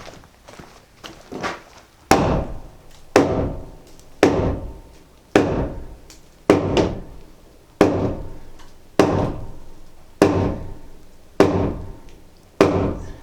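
Hammer blows at a steady pace of about one a second, each a sharp knock that rings briefly before dying away, with a few lighter knocks before them; something heavy is being driven into place.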